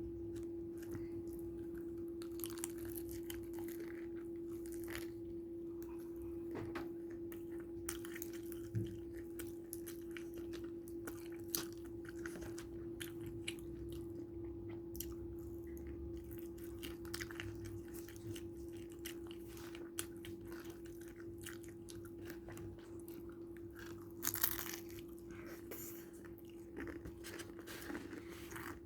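Close-up chewing and biting of crispy fried chicken: dense wet crunching and crackling, with a louder crunch about 24 seconds in, over a steady low hum.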